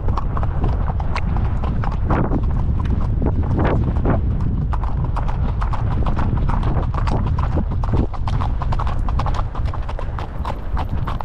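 Icelandic horse's hoofbeats: a quick run of sharp, even clip-clops, several a second, over a steady low rumble.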